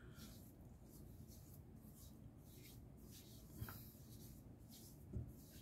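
Faint soft patting and rubbing of fingertips on facial skin as a serum is worked in, in a string of light strokes, with two small taps midway and near the end.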